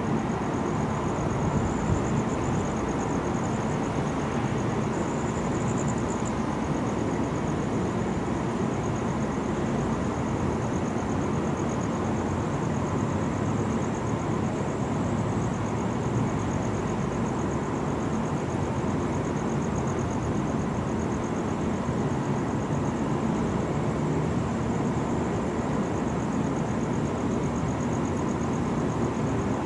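Steady city traffic noise, even and unbroken, with a faint high pulsing buzz over it. No thunder is heard.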